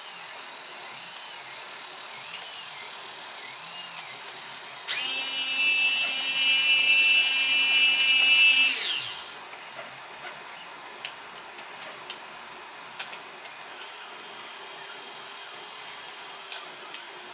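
LX-16A servo's geared motor driving a rover wheel: a faint whirr, then about five seconds in a loud high-pitched whine for about four seconds that winds down with a falling pitch as it stops. A few light clicks follow, and a quieter whirr comes back near the end.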